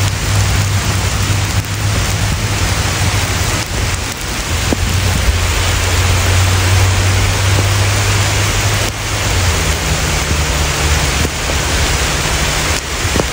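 Steady rain falling on a wet paved path and the surrounding leaves, an even hiss with a low steady hum underneath.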